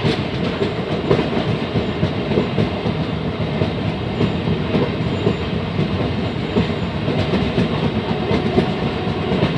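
A train running along the track: steady rumble of the wagons with a continuous clatter of wheels over the rails.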